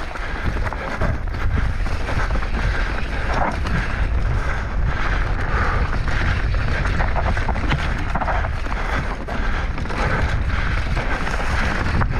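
Wind buffeting the microphone during a fast mountain-bike descent, a steady heavy rumble with the rushing and rattling of the bike and tyres on the trail.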